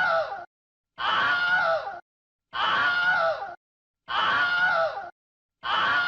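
A recorded scream sound effect played as a loop: the same scream of about a second, its pitch falling at the end, repeats about every second and a half with dead silence between.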